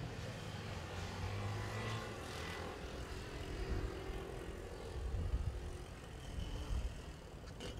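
Low, steady drone of a distant engine, with a few louder low rumbles in the second half.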